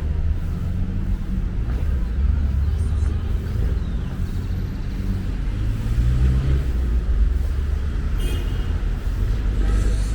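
Street traffic: cars and buses running past in a steady low engine rumble, with a brief high-pitched sound about eight seconds in.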